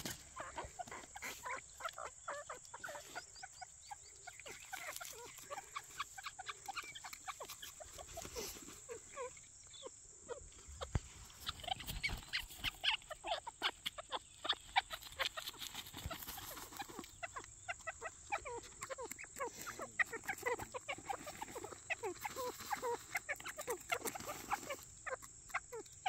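Grey francolins (grey partridges) giving a rapid, irregular run of short calls, note after note with no pause.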